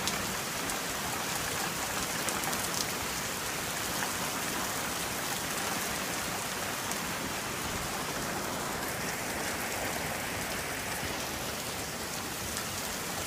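Heavy rain falling steadily, a dense, even patter of drops on a surface.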